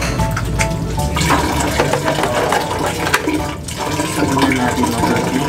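Tap water running into a sink and splashing over hands being rubbed and rinsed under the stream.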